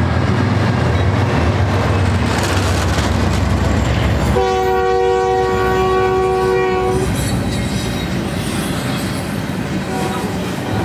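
BNSF diesel locomotives rumble as they approach at the head of a double-stack container train. About four seconds in they sound one long horn blast of several tones at once, lasting about two and a half seconds. The locomotives and loaded container well cars then roll past with steady wheel and rail noise.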